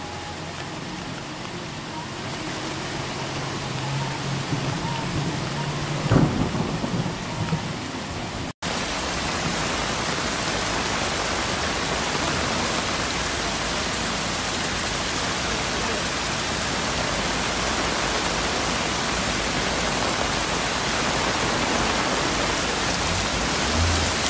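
Heavy rain pouring down in a steady, dense hiss. In the first few seconds a low steady hum runs underneath, and there is a sudden thump about six seconds in. About eight and a half seconds in the sound cuts abruptly to a louder, denser downpour.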